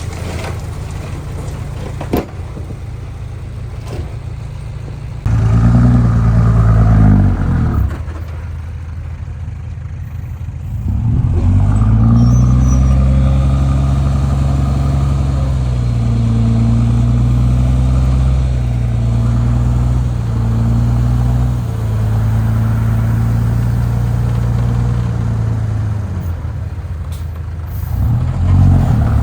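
Heavy diesel engine of earthmoving machinery running. It revs up suddenly about five seconds in, eases off for a few seconds, then works hard and fairly steadily with small rises and falls in engine speed.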